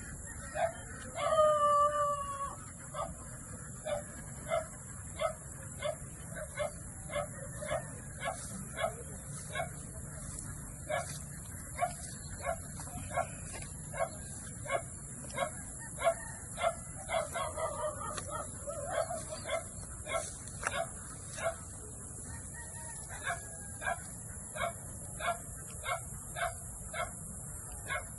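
Farm animal calls: one loud drawn-out call about a second in, then a long, regular run of short calls at about one and a half a second.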